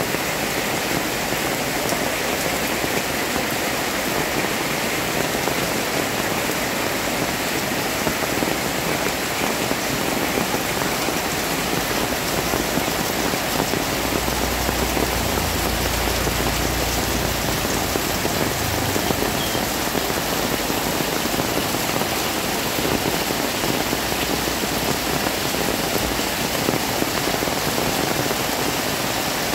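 Heavy rain falling steadily onto a flooded paved street and the tin awnings around it, splashing on the wet ground. A brief low rumble comes in about halfway through.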